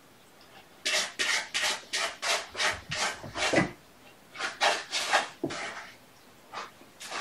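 Cat litter being scraped in a litter box: quick scratching strokes, about four a second, in a run of about three seconds and then a shorter run after a brief pause.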